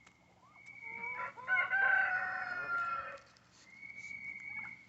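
A rooster crowing once: one long cock-a-doodle-doo starting about a second and a half in, its pitch falling slightly toward the end.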